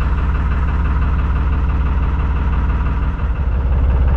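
Narrowboat's diesel engine running steadily while cruising, a low even beat.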